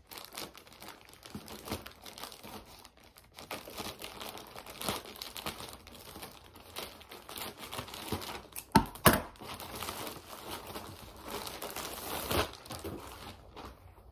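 White plastic poly mailer crinkling and rustling as it is cut open with scissors and pulled apart, with two louder sharp crackles close together about nine seconds in.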